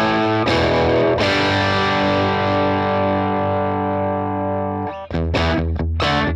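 Overdriven electric guitar: a Gibson Les Paul through a Marshall DSL20 combo's classic gain channel and its 12" Celestion speaker. Crunchy chords are struck and left to ring. Near the end they cut off into short, choppy chords at about four a second.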